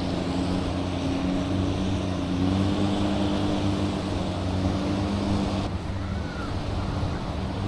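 An engine running steadily nearby, its pitch rising slightly about two and a half seconds in and easing back toward the end.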